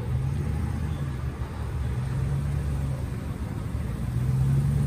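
A Chevrolet Tahoe's engine running at low speed as it pulls slowly past with a car in tow: a deep, steady hum that grows louder near the end.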